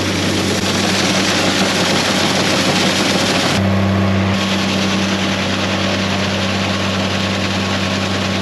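A tractor engine running steadily under a dense rushing noise, with a brief change in its sound about three and a half seconds in.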